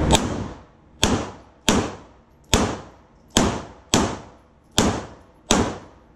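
Handgun fired eight times at a steady pace, roughly one shot every three-quarters of a second, each crack with a short echoing decay.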